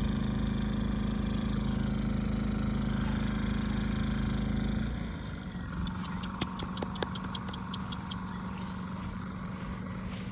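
A steady motor hum that drops in level and changes pitch about five seconds in, followed by a quick run of light clicks.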